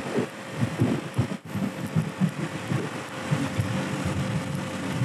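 50cc moped running at cruising speed, its small engine under a rush of riding wind that buffets the microphone in irregular gusts.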